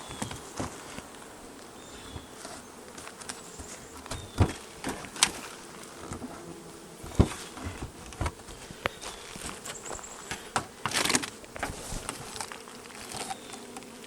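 Honeybees buzzing steadily around an opened hive, with scattered sharp clicks and knocks throughout and a brief rustling scrape about eleven seconds in.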